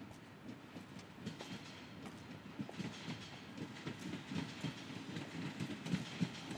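Freight wagons rolling slowly on the rails, with an irregular clatter of wheels and couplings that grows louder.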